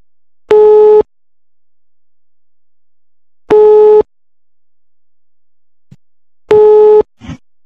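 Telephone ringback tone on a recorded call: a loud, steady single-pitched beep about half a second long, repeating every three seconds, three times, over faint line hiss. It is the sign that the called phone is ringing and has not yet been answered.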